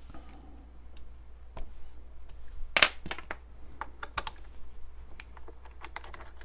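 Scattered sharp clicks and light knocks from tooling being handled at a small benchtop lathe between drilling steps, the loudest knock a little under three seconds in.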